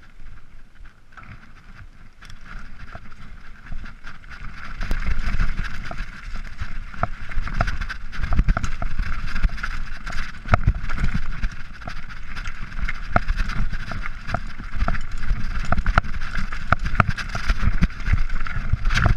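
Mountain bike rattling down a rough, stony dirt trail: tyres rumbling and crunching over loose rocks, with frequent sharp clatters from the bike and stones. It gets louder from about four seconds in as the speed picks up.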